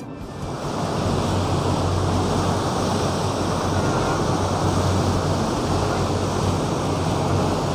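Rushing, churning water alongside a moving river express boat, mixed with wind on the microphone and a steady low hum underneath. It swells up within the first second and then holds steady.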